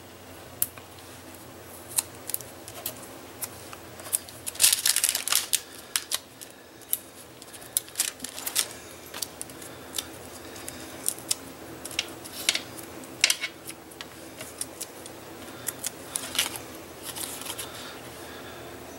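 Paper handling: scattered light clicks, taps and short rustles as foam adhesive dots are peeled off their backing and pressed onto a small cardstock square, with a denser rustle about five seconds in.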